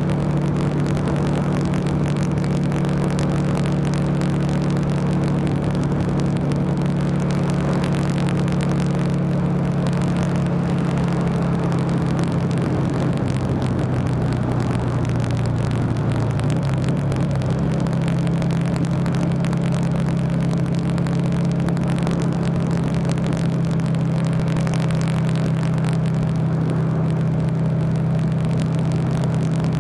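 Buell XB9SX's 984 cc V-twin engine running steadily, recorded from on the motorcycle at cruising speed. About halfway the engine note dips and wavers for a few seconds, then settles back to a steady note.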